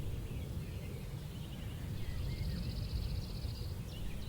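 Songbirds calling outdoors: scattered short chirps and a high, buzzy trill lasting about two seconds from around the middle, over a steady low rumble.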